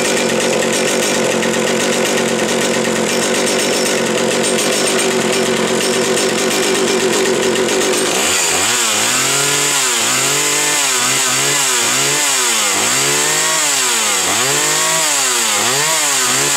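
Homelite 360 two-stroke chainsaw engine running steadily for about eight seconds, then revved up and down repeatedly, about once a second.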